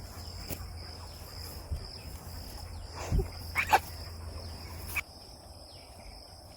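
Steady high-pitched insect chirring, with short falling chirps. A low rumble runs beneath it and stops suddenly about five seconds in, and a few sharp knocks come a little after three seconds.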